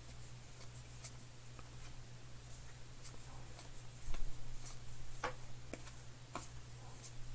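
2020 Topps Heritage baseball cards being thumbed through by hand: a soft, scattered run of light flicks and slides of card stock over a steady low hum, with a dull bump about four seconds in.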